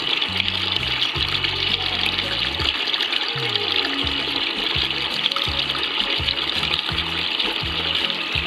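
A strong stream of water gushing from a donkey pump's outlet hose into a plastic tub of water, splashing and churning steadily. Background music with a stepping bass line plays along.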